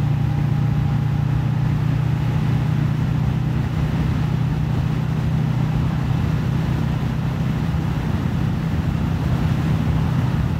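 Kawasaki Vulcan S 650cc parallel-twin engine running steadily at cruising speed, over wind and road noise.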